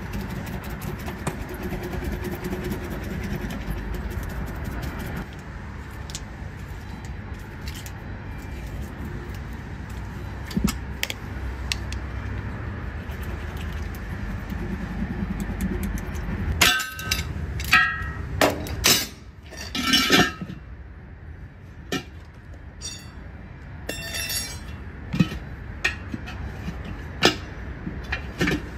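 Steel tyre-changing hand tools working on a wheel: faint clicks over a steady low rumble, then a run of sharp, ringing metal-on-metal clinks past the middle and a few more later on.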